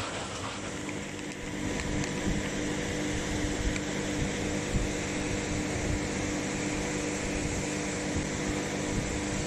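Automatic bagging line (multihead weigher and vertical form-fill-seal packaging machine) running steadily: a constant mechanical hum with a steady tone that sets in about a second in.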